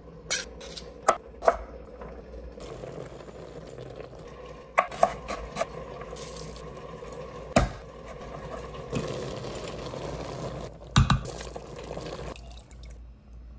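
Kitchen food-prep sounds: a knife knocks sharply on a wooden cutting board, in several clusters of single knocks. Toward the end comes a longer wet, noisy stretch as ingredients and liquid go into a metal cooking pot.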